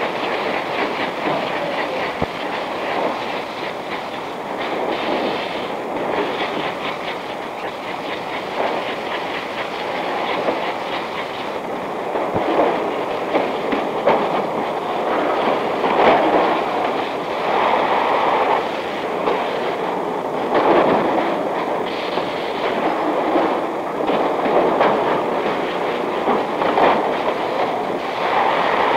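Bakery production-line machinery, conveyors carrying loaves of bread, running with a steady, rapid mechanical clatter that swells a little now and then.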